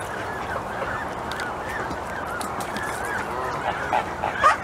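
Many waterfowl calling over one another in a steady clamour of short calls. A few louder, nearer calls come near the end.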